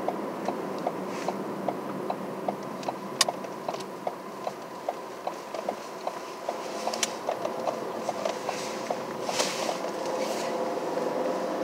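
A car's turn signal ticking steadily, about three ticks a second, over the running hum of the vehicle. A little past halfway a faint engine note begins to rise slightly as the vehicle pulls away, and the ticking fades out near the end.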